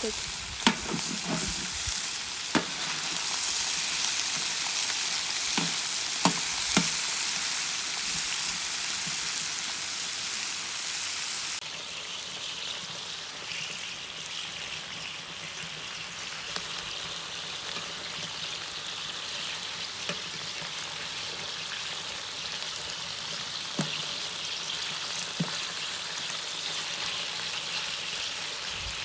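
Chicken and pork pieces sizzling in oil in a large paella pan, with scattered sharp clicks and knocks. The sizzle drops suddenly to a lower level about a third of the way through.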